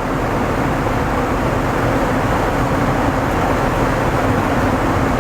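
Steady rushing air noise inside an Airbus A380 cabin, even and unbroken.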